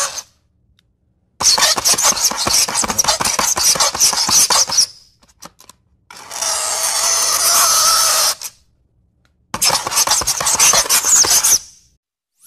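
Fingernails scraping down a chalkboard: a high-pitched, grating screech. One scrape ends right at the start, then three more follow, each two to three seconds long, with short breaks between.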